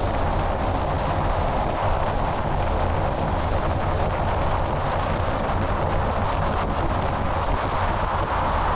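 Steady wind rush buffeting the microphone of a camera on the hood of a moving car, over a constant low rumble of road and tyre noise.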